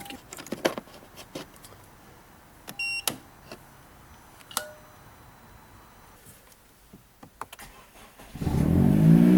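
A few small clicks and a short electronic chime beep about three seconds in, then near the end a car engine starts, rising in pitch and settling into a steady fast idle. The car's battery is failing.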